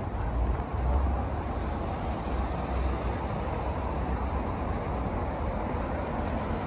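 Outdoor background noise: a steady hiss with a low rumble that swells in gusts, loudest about a second in.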